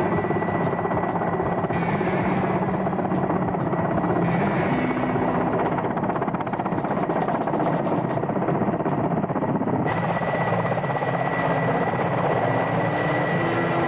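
Mil Mi-8-type military transport helicopter hovering and flying close by: continuous heavy rotor and turbine noise with a thin, steady high whine.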